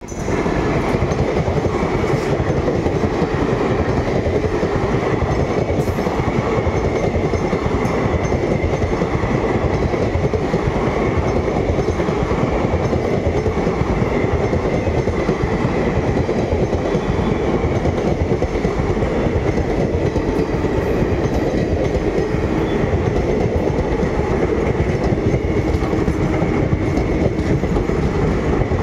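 Indian Railways WAP-7 electric locomotive and a long rake of passenger coaches passing close by. The wheels run steadily and loudly over the rails.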